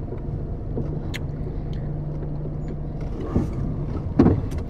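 Car engine and road noise heard from inside the cabin while driving: a steady low hum with a few faint ticks and a short louder sound near the end.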